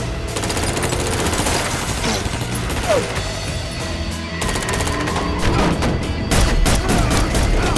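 Film-soundtrack gunfire: a rapid burst of automatic rifle fire about half a second in, then several separate pistol shots near the end, over a film score.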